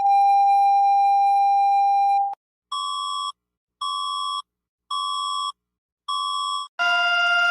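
Synthesized emergency-alert tones. A steady buzzy tone holds for about two seconds and cuts off, then four shorter, higher beeps come about once a second, and a louder tone of several pitches together starts near the end.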